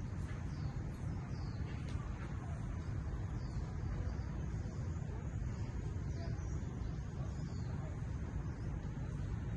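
Outdoor nature ambience: a steady low rumble, with faint, short, high falling bird chirps about once a second.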